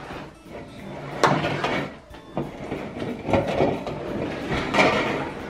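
Plastic gallon jugs of glue knocking and thumping against a tabletop as they are grabbed and moved, several separate sharp knocks.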